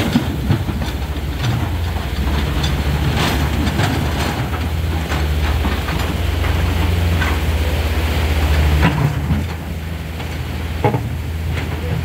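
Diesel engines of a Tata Hitachi and a Komatsu hydraulic excavator running steadily under load, with scattered clanks of steel buckets against river rocks over the rush of fast-flowing water.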